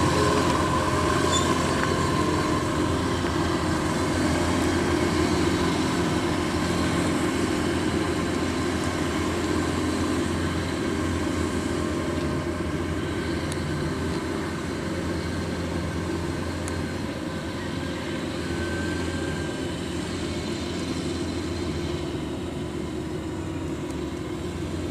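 Kubota DC-93 rice combine harvester's diesel engine running steadily as the machine drives and cuts across the field. It makes a constant drone that grows slightly fainter as it moves off.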